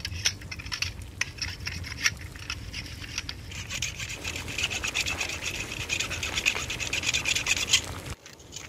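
Box cutter blade sawing through leafy plant stems, a run of rapid scratchy rasping strokes that grows denser about halfway through and stops abruptly near the end.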